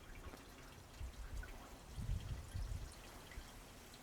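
Faint dripping and trickling of water from the opened drain of a pool cartridge filter, the last of the water left after draining, with a few soft low bumps.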